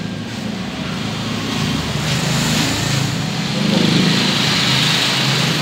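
A motor-driven sprayer runs with a steady hum under a hiss of spray mist, the hiss growing brighter near the end.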